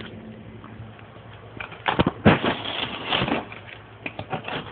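Plastic-wrapped cardboard box being handled and turned over: rustling wrap and knocks against the box, loudest about two seconds in, then lighter clicks and rustles.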